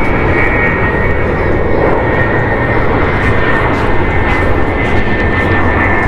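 Airliner flying low overhead: loud, steady engine noise with a thin, high, steady whine over it.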